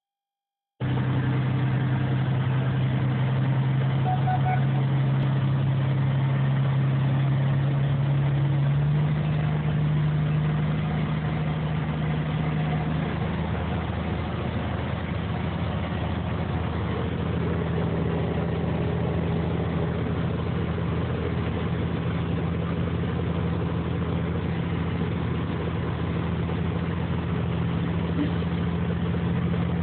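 Vehicle engine running steadily at low speed, heard from inside a vehicle cab. Its pitch steps up a little about a third of the way in and again just past halfway.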